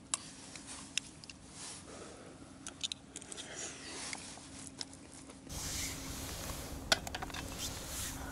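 Scattered light clicks, taps and scrapes of small objects being handled, such as camp dishes and utensils, over a faint steady low hum. About five and a half seconds in, a louder steady rushing background comes in abruptly.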